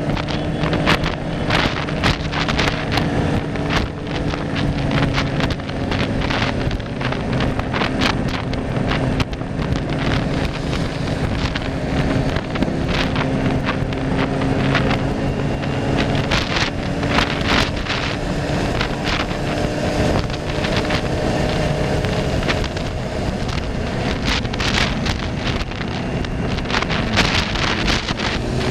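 Wind buffeting the microphone in gusts during steady forward motion, over a continuous hum whose pitch drifts slowly.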